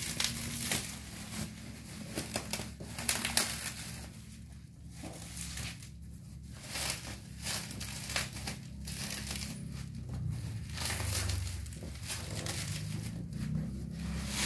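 Bubble wrap around a cardboard TV box crinkling and crackling as it is handled and pulled off, in irregular crackles that come thickest in the first few seconds.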